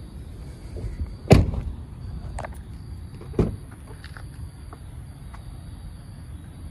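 Chevy Tahoe door being unlatched and opened: a loud clunk about a second in, a softer thud two seconds later and a few small clicks, over a steady low rumble.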